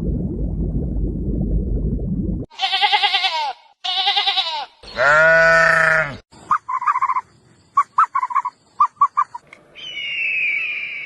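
A low rumbling noise, then three long bleats from livestock, each about a second long with a wavering pitch. After them comes a quick series of short high chirps, and near the end a single falling high call.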